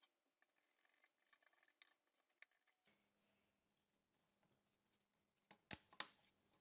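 Near silence broken by faint ticks, then two short, sharp clicks near the end. These are the plastic housings of an MT-63 overload relay and an MC-65a contactor being pushed together by hand.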